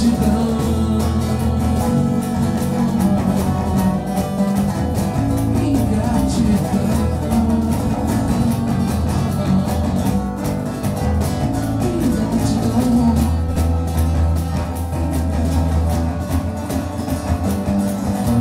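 Live acoustic band music: an acoustic guitar strummed steadily, with a cajón keeping the beat.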